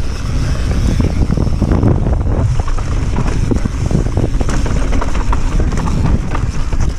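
A cross-country mountain bike descending fast on a dirt trail: tyres rolling over dirt and rocks with many small knocks and rattles from the bike over bumps, under steady wind rushing over the microphone.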